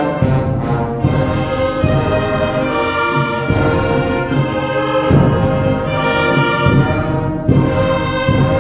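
Concert band playing held brass chords with timpani, with accented hits about five seconds in and again near the end.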